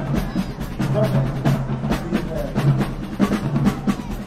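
High school marching band playing, its drumline of bass drums and snares striking a busy rhythm over low held notes.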